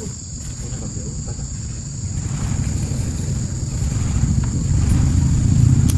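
An engine running with a low rumble that grows steadily louder, over a steady high insect buzz.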